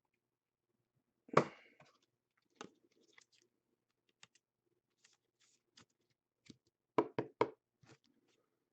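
Trading cards being handled and set down on a table: a sharp tap about a second and a half in, scattered light clicks through the middle, and a quick run of three taps near the end.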